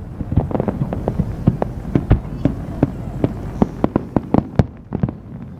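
Aerial fireworks shells bursting in quick succession: a dense, irregular run of sharp bangs and booms, several a second, with the loudest about two seconds in.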